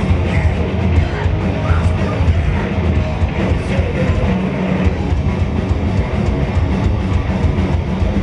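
Live thrash/grindcore band playing loud and fast: distorted electric guitars and bass over a pounding drum kit.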